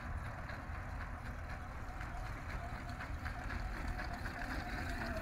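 Small wheeled sidewalk robot driving along concrete, with a steady low rumble and a faint wavering whine.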